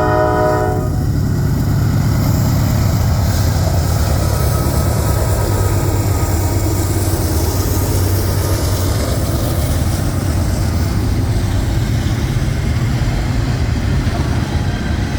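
Norfolk Southern freight train passing close by: the locomotive horn's chord cuts off about a second in, then a steady, loud rumble of wheels on rail continues.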